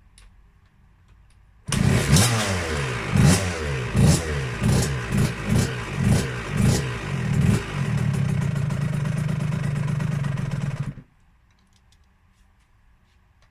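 KTM 65 SX single-cylinder two-stroke dirt bike engine coming in suddenly and being blipped about eight times in quick rising-and-falling revs, then holding a steady speed for about three seconds before cutting off abruptly.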